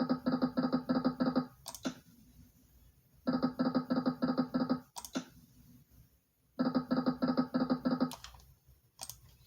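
Video slot machine spinning three times: each spin plays a rapid pulsing electronic tone for about a second and a half, ending with a sharp click, and another click comes near the end.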